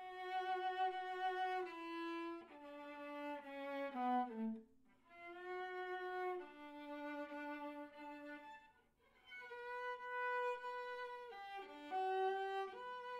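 Violin played solo with the bow: a slow melody of held notes, with two short breaks about five and nine seconds in.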